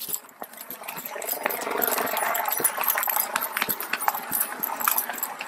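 Footsteps with the irregular clicking, jingling and rattling of a police officer's duty-belt gear and clothing as the officer wearing the body camera moves, picked up close on the body-worn camera.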